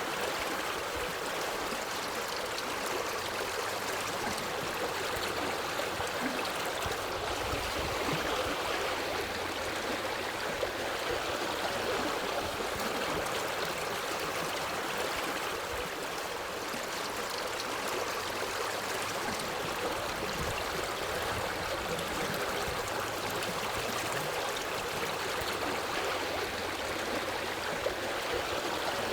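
Forest stream running over rocks: a steady rush of flowing water with gurgling and trickling.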